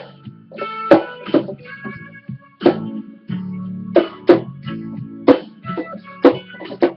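Guitar music: single notes picked sharply at irregular intervals, ringing over a held low chord.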